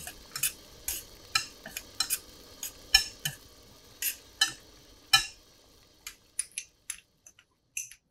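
Metal spoon stirring peanuts in a small stainless steel pan, clinking and scraping against the pan about twice a second. The stirring stops about five seconds in, and a few lighter, higher clicks follow near the end.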